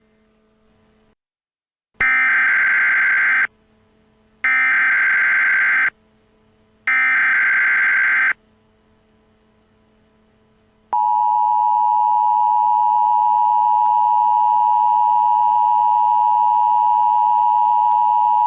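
Emergency Alert System SAME header: three identical harsh data bursts, each about a second and a half long. They are followed by the EAS two-tone attention signal, one steady loud tone held for about eight seconds, which announces that an emergency voice message is about to follow.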